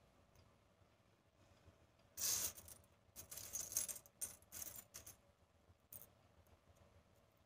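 Loose jingle shells clinking and rattling against one another and the tabletop as a hand rummages through a pile of them. The clinking comes in short bursts from about two to five seconds in, with one more click near six seconds.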